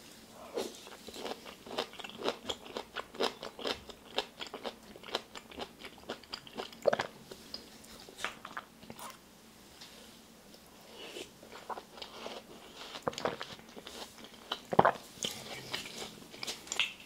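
Close-up crunching and chewing of crisp fruit chunks from a watermelon fruit punch: a quick run of wet crunches, with a short lull about ten seconds in and one loud crunch near the end.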